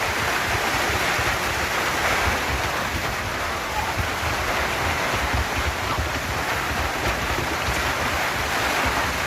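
Heavy rain pouring steadily, with wind gusting on the microphone.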